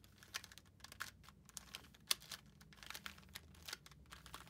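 Plastic Pyramorphix puzzle being turned by hand through a U-perm algorithm: a rapid, irregular run of light clicks and clacks as its layers snap round, one sharper clack about two seconds in.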